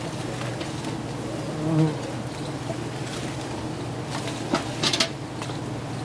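Swarm of giant honeybees buzzing steadily around their exposed comb. A few short sharp clicks come near the end, about four to five seconds in.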